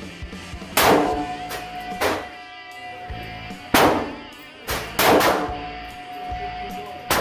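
Ruger SP101 .357 Magnum snub-nose revolver being fired, a string of about five shots roughly every second and a half, each with a short ring-out. Background music plays underneath.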